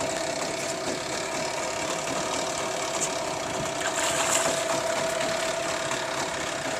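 An engine running steadily, with one constant mid-pitched whine over an even hum. A brief hiss rises over it about four seconds in.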